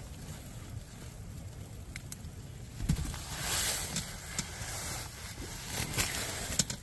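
Handling noises: scattered knocks and clicks, with a short rustle about three and a half seconds in.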